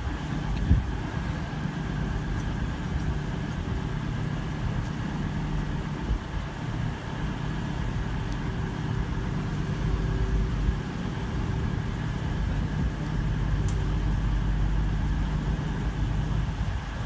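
CrossCountry Voyager diesel multiple unit's underfloor diesel engines running with a steady low hum at the platform, getting louder and deeper from about ten seconds in.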